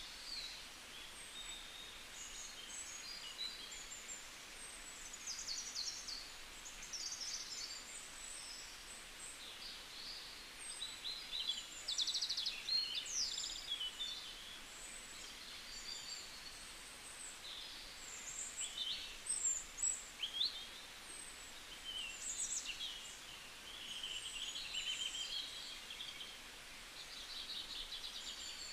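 Small birds chirping and twittering, many short calls scattered throughout and loudest around the middle, over a steady background hiss.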